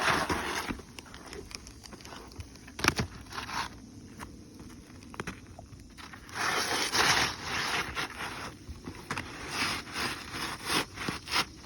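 Asphalt roof shingle being pried and scraped loose: spells of rough scraping and crackling, with sharp knocks and clicks, the loudest knock about three seconds in.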